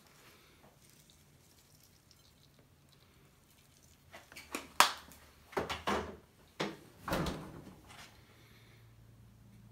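A grated-Parmesan shaker can and a dinner plate handled on a kitchen counter: a few seconds of quiet room tone over a faint low hum, then a quick run of sharp knocks and clatters about halfway through as the cheese is shaken on and the plate is picked up.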